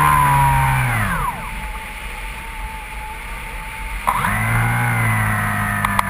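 Electric motor and propeller of a Skywalker FPV model plane whining steadily, heard from the onboard camera. About a second in the throttle is cut and the whine drops away quickly, leaving quieter air noise. About four seconds in the throttle comes back with a click and the whine rises again to a steady pitch, with two short clicks near the end.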